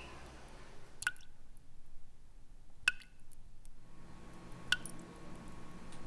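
Water dripping from a tap, single drops landing with a short plink about every two seconds, three times.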